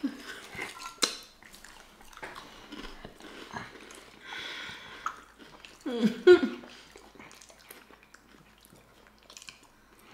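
Close-miked chewing and wet mouth smacks of someone eating a chili cheese sausage dog, with scattered small clicks. A short vocal sound about six seconds in is the loudest moment.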